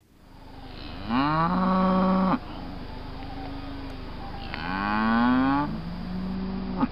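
A black cow mooing twice, two long calls of a second or more each, the second rising in pitch, over a steady low rumble, with a short sharp click near the end.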